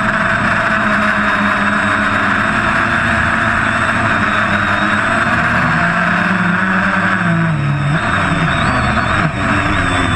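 Quadcopter's electric motors and propellers, heard from the GoPro on its frame, giving a steady loud buzzing whine. In the last few seconds the pitch wavers up and down as the motors change speed.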